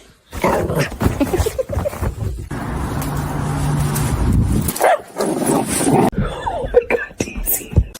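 A dog barking, with other calls and noise.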